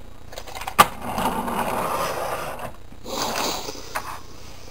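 A sharp plastic knock, then a plastic toy armored truck scraping across a wooden tabletop in two stretches, a longer one and then a shorter one.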